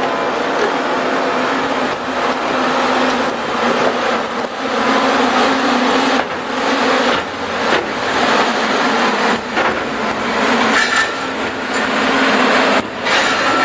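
Added sound effect of heavy machinery running: a steady engine hum under a dense mechanical din, with a few brief breaks.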